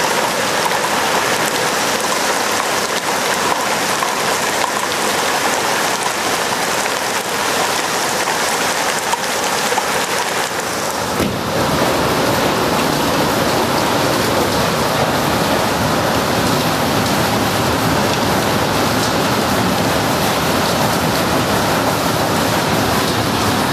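Hail and heavy rain from a decaying supercell pelting down, hailstones of 2–4 cm among the downpour: a dense, steady hiss of impacts. About eleven seconds in, the sound turns fuller and deeper and stays that way.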